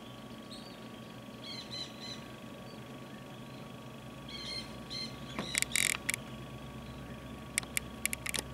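Plumed whistling ducks giving short, high whistled notes in quick little clusters, twice. A louder brief noisy burst comes just past the middle, and a few sharp clicks near the end.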